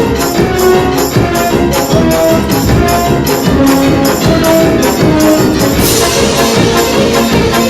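Fast-paced soundtrack music: sustained melodic notes over a steady percussion beat that includes tambourine-like strikes.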